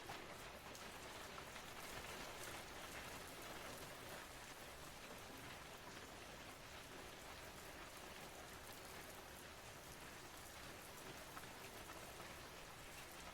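Faint, steady rain on a window: an even hiss with many small drop ticks scattered through it.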